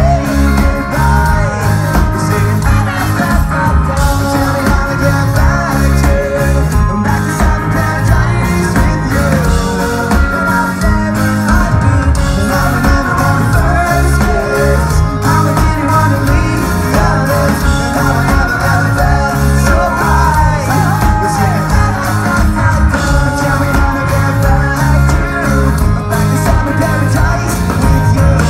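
Pop-punk band playing live and loud: electric guitars, bass and drums with a lead singer singing over them.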